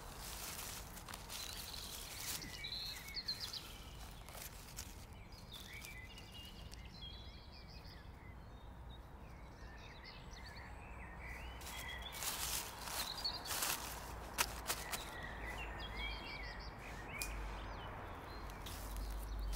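Dry fallen leaves rustling as a porcino is picked from the leaf litter and the picker moves through the wood, with louder rustles in the second half. Small birds chirp faintly in the background throughout.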